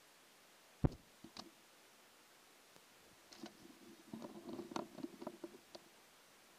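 A single sharp thump about a second in, then a flurry of faint knocks and rattles: a latex weather balloon bursting at near 99,000 feet and the camera payload being jolted about as it begins to fall.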